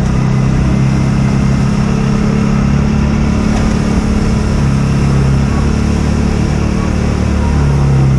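Segway Snarler ATV engine running steadily under load while its front plow blade pushes a pile of heavy snow, the engine note lifting slightly near the end.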